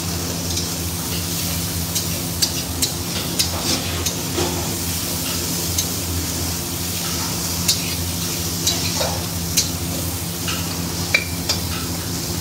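River prawns sizzling in hot oil in a metal kadai over a high-flame gas burner, while a metal spatula scrapes and clinks against the pan as they are turned, with many short sharp ticks. A steady low hum runs underneath.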